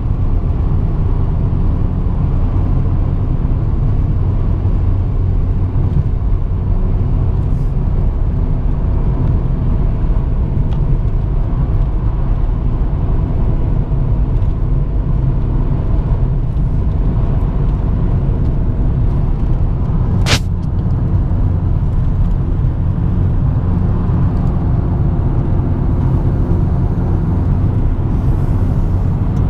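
Steady low road and engine rumble from inside a moving car. A single sharp click comes about two-thirds of the way through.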